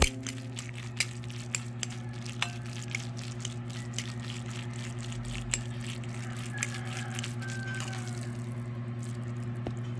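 Metal fork stirring and tossing oily instant fried noodles in a ceramic bowl, making wet, sticky squishes and light clicks against the bowl. The clicks thin out near the end, and a steady low hum runs underneath.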